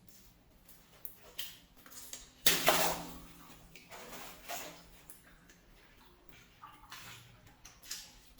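A water balloon bursting with a sudden loud pop and splash about two and a half seconds in, amid small taps and rubbery handling sounds before and after.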